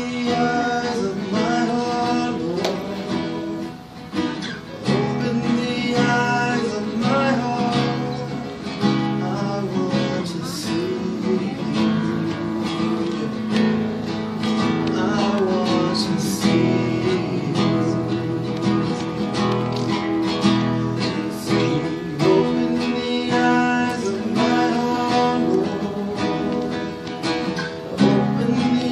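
Nylon-string classical guitar strummed steadily, with a man singing along.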